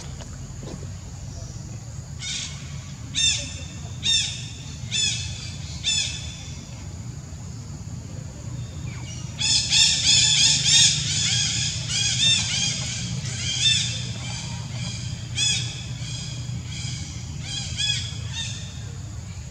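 Baby macaque squealing in short, high-pitched calls, each rising then falling: a few spaced about a second apart, then a dense run of calls about halfway in, thinning out toward the end. A steady low hum lies underneath.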